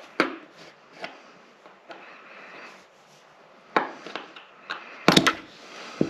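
Sharp plastic clicks and snaps of a small pick or screwdriver tip prying at a pull-chain switch housing, a few single clicks and then a louder cluster of snaps about five seconds in as a piece of the switch comes off.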